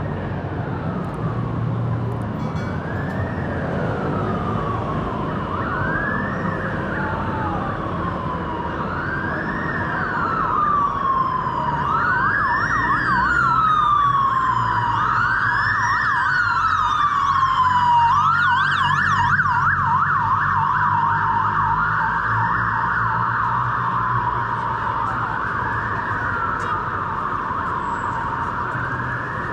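Emergency vehicle siren sounding a wail: a slow rise and fall about every three seconds. It grows louder toward the middle and fades again, with a short burst of fast yelp about two-thirds of the way through. Low traffic rumble runs underneath.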